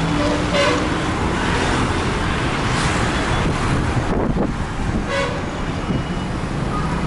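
Busy street traffic: a steady rumble of motorbikes and cars, with short vehicle-horn toots near the start and again about five seconds in.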